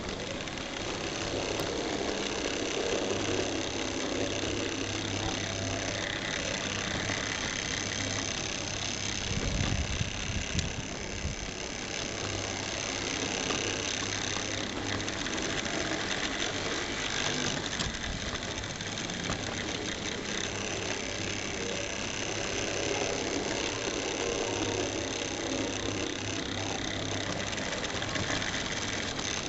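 Tri-ang Hornby model diesel locomotive running along the track, its small electric motor and gears whirring steadily with the wheels rattling on the rails, heard close up from on board the train. A briefly louder rumble comes about ten seconds in.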